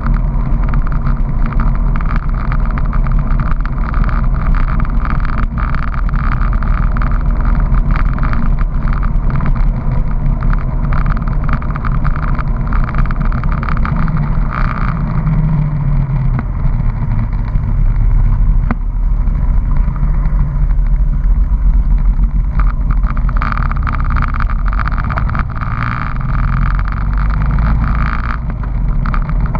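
Honda PC800 motorcycle's V-twin engine running at road speed under a steady wind rush. About halfway through the engine note falls in pitch for a few seconds.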